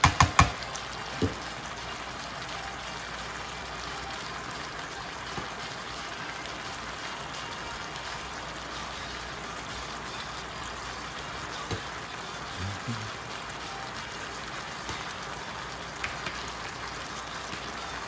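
Chicken strips and peppers sizzling and simmering in their juices in an electric skillet, a steady crackling hiss. In the first second or so a silicone spatula knocks against the pan a few times.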